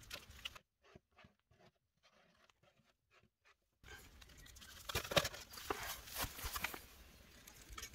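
Faint small clicks as a car tyre's valve cap is turned by fingers. From about four seconds in, louder rustling with scattered sharp clicks, which is handling noise as the camera is moved over grass.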